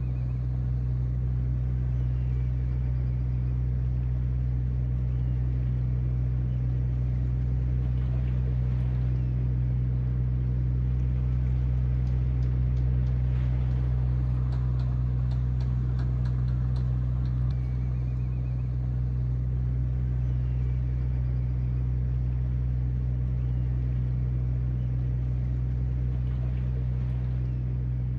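Low, steady drone of an inbound fishing boat's diesel engine heard across the harbour water.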